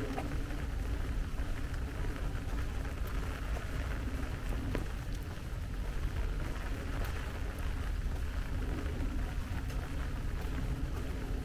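Steady rain falling, over a low continuous rumble.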